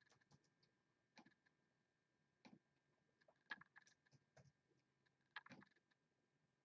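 Faint, scattered clicks of a computer mouse and keyboard, about a dozen spread irregularly over several seconds, over a faint steady high-pitched tone.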